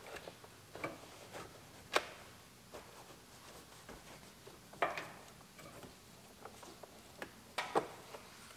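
Scattered light clicks and knocks from hands handling plastic trim and wiring harnesses inside a car's interior, with sharper clicks about two seconds in, near five seconds in and near the end.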